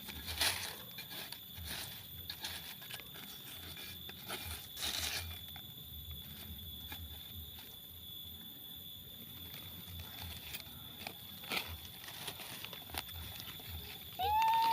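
Faint, scattered rustling and crackling of leaves and stems being handled, over a thin steady high tone. Just before the end comes a brief, louder high-pitched call whose pitch rises.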